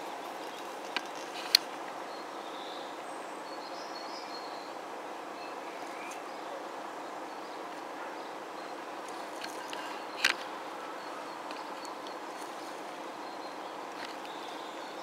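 Steady outdoor background noise by a railway line, with faint high bird chirps and a few sharp clicks, the loudest about a second and a half in and another about ten seconds in.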